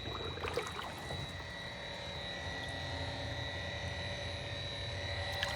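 Yousky cordless handheld pool vacuum running, its motor giving a steady high whine over a low hum while it suctions the pool floor. A few faint clicks about half a second in.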